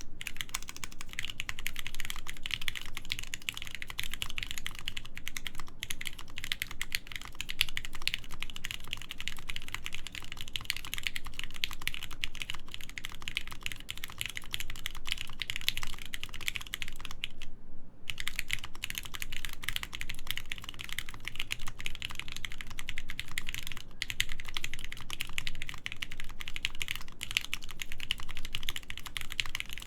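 Continuous typing on a DD-40 (HHKB-layout) mechanical keyboard with Krytox-lubed Gateron Mizu switches, a full aluminium plate and PBT keycaps: a dense, steady run of keystrokes. It breaks off in one short pause a little past halfway.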